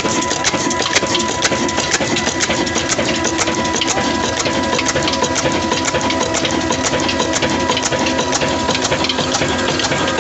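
Old black 26 HP desi diesel engine running steadily under load, driving a flour mill: a fast, even clatter of knocks over a steady mechanical hum.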